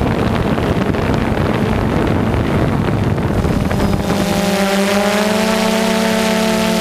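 DJI Phantom 2 quadcopter's motors and propellers heard through its onboard camera. At first wind rushes over the microphone. About four seconds in the wind drops away and a steady hum of several close, slightly wavering pitches takes over.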